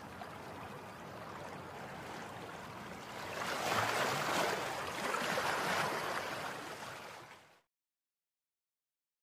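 Water sound effect: a splashing, rushing noise that swells about three and a half seconds in, then fades out to silence a couple of seconds before the end.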